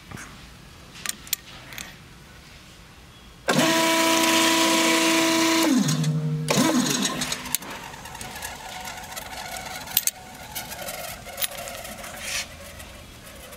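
AeroQuip hose crimp machine running a crimp cycle on a Dash 8 hose end: a loud, steady machine whine comes in suddenly about three and a half seconds in and lasts about two seconds, then drops in pitch as it winds down. Before and after it there are a few light clicks from the hose and fitting being handled.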